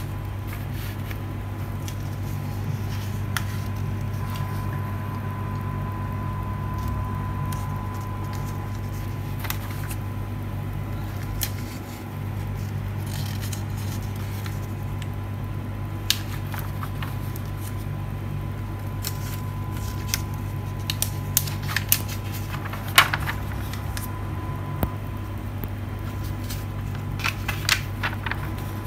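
Glossy magazine pages being handled and turned, with scattered crisp rustles and taps that come more often in the second half, over a steady low hum.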